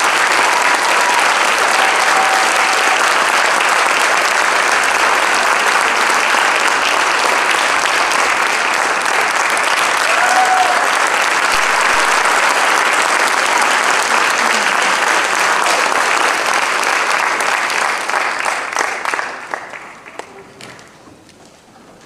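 Audience applauding steadily, then dying away near the end.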